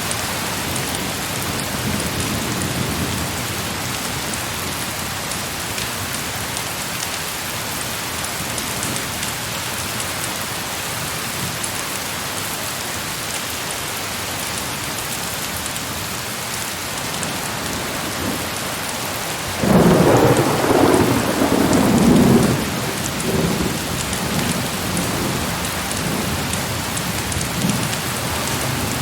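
Heavy rain falling steadily. About twenty seconds in, a sudden loud thunderclap breaks in and rolls on in weaker rumbles for several seconds.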